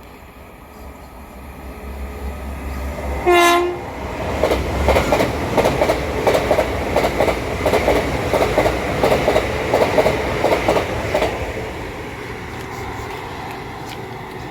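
A train approaches and passes: a short horn blast about three seconds in, then a run of wheel clicks over rail joints for about seven seconds, dying away as it goes.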